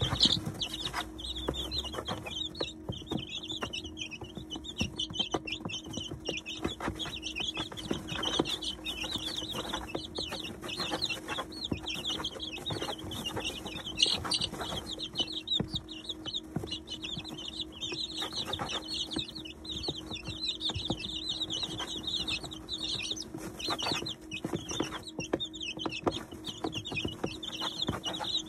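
Flock of 19-day-old chicks peeping continuously in many short overlapping calls while pecking at grain in a plastic feeder, with frequent sharp pecking clicks. A steady low hum runs underneath.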